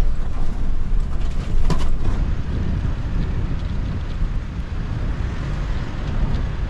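Car road noise heard from inside the moving car, a steady low rumble, with a couple of faint clicks about two seconds in.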